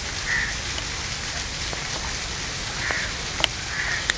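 A crow cawing three times, spread out, over a steady outdoor hiss, with a sharp click about three and a half seconds in and another near the end.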